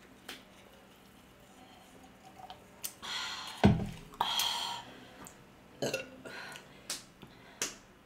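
A person burps once, loudly, about three and a half seconds in, after sipping carbonated Coca-Cola through a straw, followed by a breathy exhale. A few short sharp clicks come near the end.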